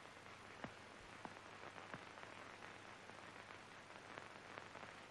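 Near silence: a faint steady hiss and low hum with scattered small clicks and crackles.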